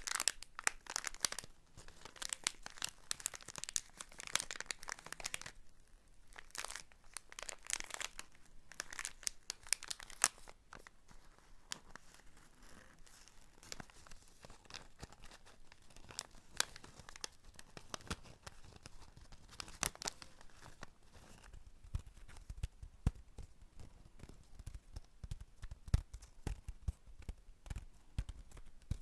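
Close-up crinkling and rustling of a crinkly material worked by hands, a dense run of small crackles that is heaviest in the first ten seconds and then thins out. Low, dull knocks join in over the last several seconds.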